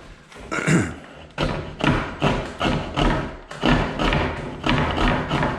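Coping saw cutting by hand through the end of a wooden crown molding, in steady back-and-forth strokes about two and a half times a second that start about a second and a half in.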